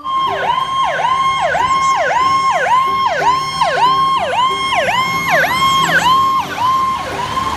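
Fire truck siren sounding in a fast repeating pattern, its pitch dipping sharply and climbing back about twice a second.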